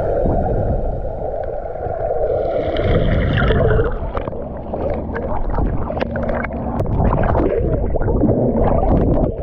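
Muffled underwater noise picked up by a submerged action camera: a steady rumble of water with gurgling and many small clicks and pops.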